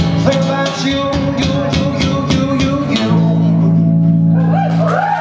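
Guitar strumming the song's closing bars, then the final chord struck about three seconds in and left ringing. The audience starts to cheer near the end.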